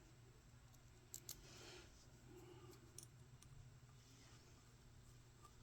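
Near silence, broken by a few faint, sharp metallic clicks. These come from small screws and a hex driver being handled while the screws go into an RC crawler's aluminium portal axle housing.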